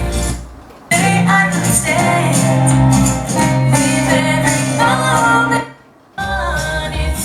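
Pop song with a woman singing over guitar, played back through a Yamaha RX-V595 AV receiver and JBL Legacy LA-800 speakers. The music drops away briefly twice, just under a second in and again about six seconds in, before coming back.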